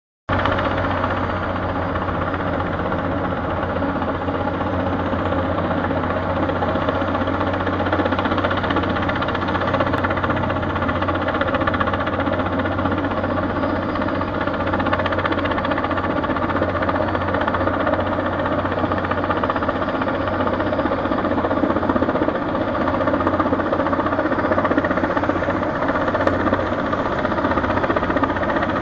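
Helicopter running steadily overhead: the rapid beat of the rotor over the engine's whine, with no change in pitch or level.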